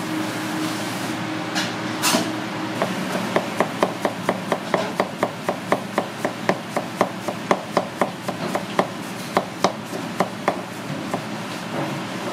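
A chef's knife slicing an onion on a plastic cutting board: an even run of sharp knife strikes on the board, about four a second, starting about three seconds in and stopping shortly before the end. There is a steady hum underneath, and a single louder knock comes about two seconds in.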